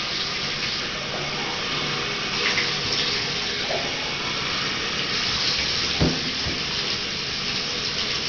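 Water running steadily into a bathtub from the tap, with one short knock about six seconds in.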